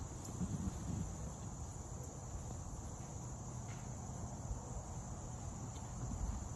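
A steady, high-pitched chorus of insects in a summer pasture, with an uneven low rumble underneath.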